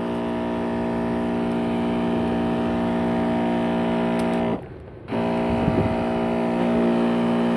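Newly fitted DC pump motor of an electric knapsack sprayer running under load with a steady, even hum while it drives a fairly strong spray, the sign that the replacement pump works properly. It cuts out for about half a second around four and a half seconds in, then runs on.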